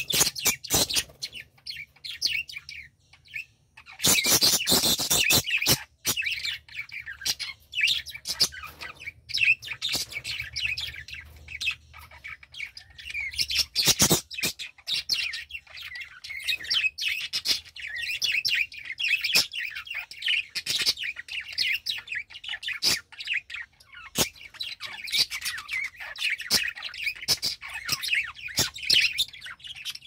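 A small flock of budgerigars chattering and warbling, many quick chirps overlapping without pause, with a louder burst of chatter about four seconds in.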